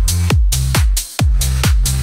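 Electronic dance music with a steady kick drum, about two beats a second, over a sustained bass line. The track drops out briefly about a second in, then comes back on the beat.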